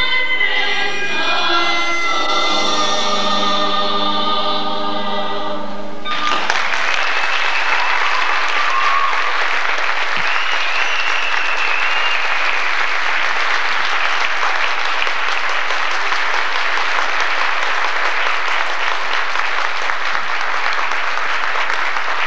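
A high school show choir sings the end of a song, cutting off abruptly about six seconds in. An audience then applauds steadily.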